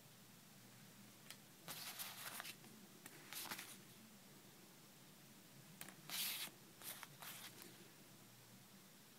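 Paper stickers being handled and swapped by hand: short bursts of paper rustling and sliding, about four times, over a faint background hum.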